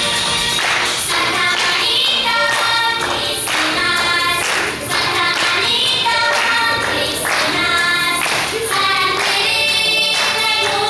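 A children's praise team singing a worship song together, with women's voices among them, over an accompaniment with a steady beat.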